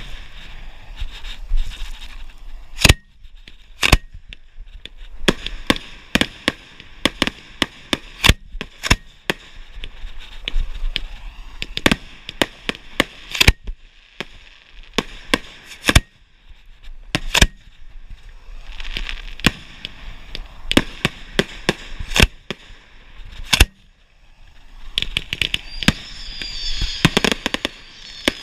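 Fireworks shells firing from mortar racks close by: dozens of sharp bangs in quick, irregular succession, several bunched together at times, with crackling hiss between them.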